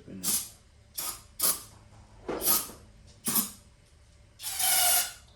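Mechanical clicks and knocks from hands and tools working on a motorcycle: five short sharp clicks, then a louder rasping, ratchet-like burst of about half a second near the end.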